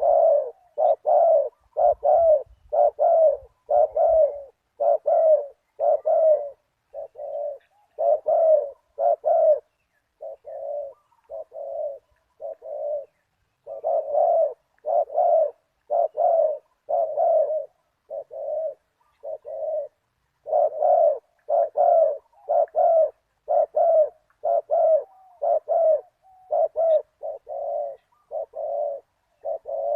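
Spotted doves cooing over and over, short deep coo notes strung into phrases with brief pauses between them.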